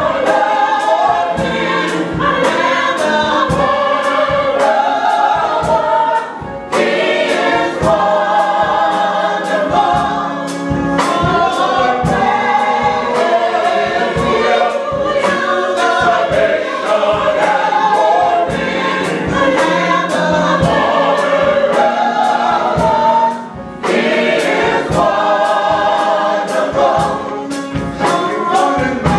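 Church choir of men and women singing a gospel song in full voice, over a steady beat. The singing breaks off briefly between phrases twice.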